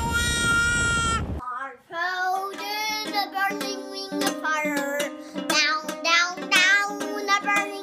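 A baby's long, high-pitched squeal that cuts off suddenly about a second and a half in. A young girl then sings while she strums a pink plastic toy guitar.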